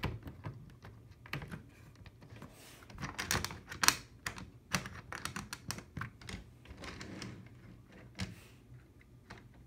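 Irregular light plastic clicks and knocks from an HO scale model diesel locomotive being handled on plastic-roadbed track, with the loudest clack about four seconds in.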